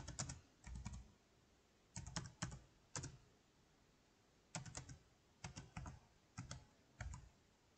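Faint computer keyboard typing: groups of quick keystrokes with short pauses between them, as a password is typed in.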